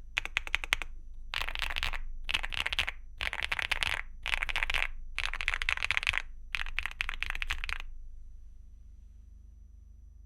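Mechanical keyboard with Gateron Type R tactile switches and PBT keycaps (Weikav NUT65): a few last separate keystrokes, then six quick bursts of many keys mashed at once, each burst about half a second to a second long. The typing stops about eight seconds in.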